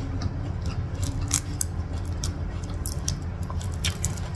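Cooked prawn shell being peeled and pulled apart by hand: a scatter of sharp, crisp cracks and crackles, with a steady low hum underneath.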